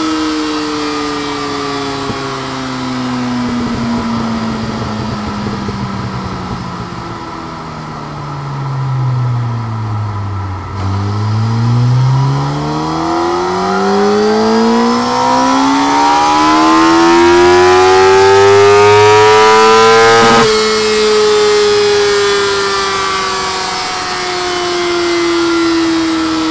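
2004 Yamaha YZF-R1 inline-four engine, fitted with Scorpion silencers, running on a dyno. For about the first ten seconds the revs fall away. The engine then makes a full-throttle pull, its pitch rising steadily for about ten seconds until the throttle is shut suddenly and the revs wind down. The tuner says a slight clutch slip can be heard in the run.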